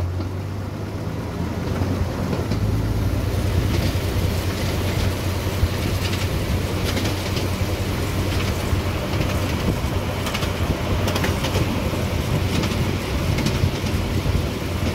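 Miniature railway train running along its track: a steady low rumble and hum, with scattered sharp clicks from the wheels on the rails every second or so.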